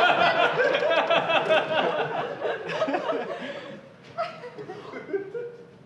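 Theatre audience laughing, the laughter trailing off over the first few seconds until it is mostly quiet.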